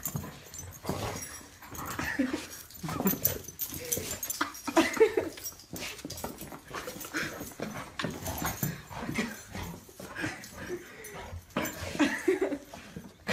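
A dog making short, irregular vocal sounds during rough play-wrestling.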